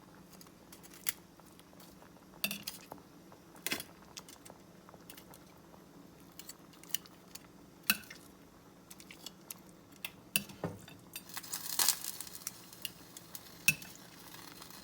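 A utensil clicking and tapping against the skillet as chicken pieces are set back into the rice. The clicks are scattered and sharp, with a short rush of scraping a little after the middle.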